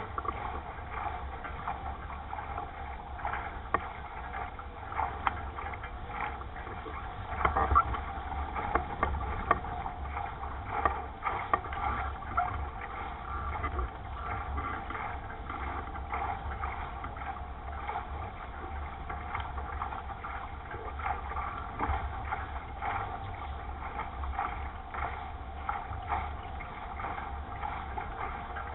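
Wind buffeting the microphone and water rushing along the hull of a 420 sailing dinghy under way, with frequent small knocks and rattles.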